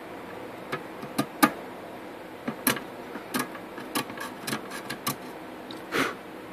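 Irregular light clicks and taps from handling a printed circuit board by hand, about nine spread over a few seconds, the loudest about a second and a half in and near the end.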